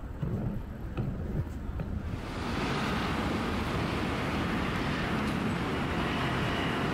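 Outdoor city-street ambience with a low traffic rumble. About two seconds in it gives way to a louder steady rushing noise that holds until it cuts off abruptly at the end.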